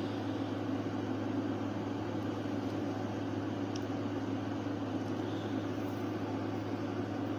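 Steady low hum with an even hiss behind it, unchanging throughout: room background noise such as a fan or appliance running.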